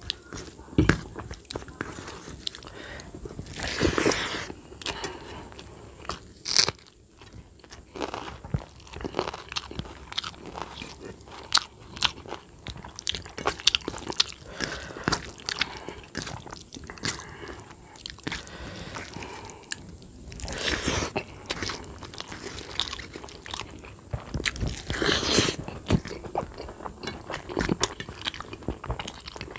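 Close-up eating sounds of a man eating rice and jackfruit curry with his hand: wet chewing and mouth clicks, and fingers mixing the rice on a steel plate. A few louder spells come about four, twenty-one and twenty-five seconds in.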